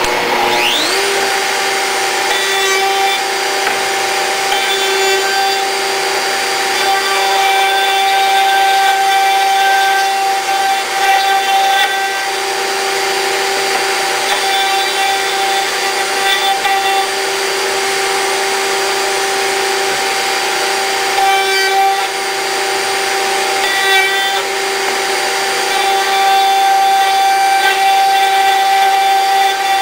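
Router in a router table switched on, spinning up about a second in to a steady high whine. Rougher cutting noise comes and goes as oak stock is pushed into the bit to cut mortises.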